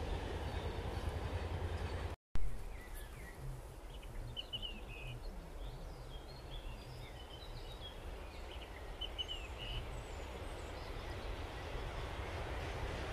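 Outdoor rumble with birds chirping in short bursts, the rumble slowly growing near the end as a freight train hauled by an ET22 electric locomotive approaches. About two seconds in, a sharp click at an edit cut.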